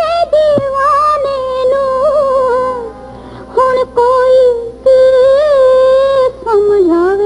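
Music from a 1960s Punjabi film song, a passage with no sung lyrics, carried by one melody line in long, wavering notes that drops lower near the end.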